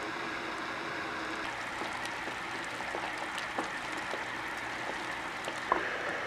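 Self-heating hot pot heating up: a steady bubbling hiss from the heating pack boiling under the food bowl, with scattered small pops and crackles that grow more frequent in the second half, one a little louder near the end.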